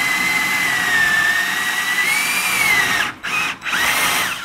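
DeWalt cordless drill boring a hole through wall tile. The motor runs steadily for about three seconds, its whine sagging and rising a little with the load, then the trigger is pulsed in two short bursts near the end.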